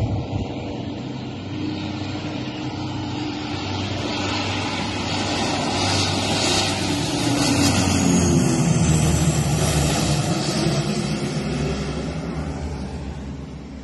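Canadair firefighting water bomber flying low past, its propeller engines growing louder, peaking about two-thirds of the way through with the pitch dropping as it goes by, then fading away.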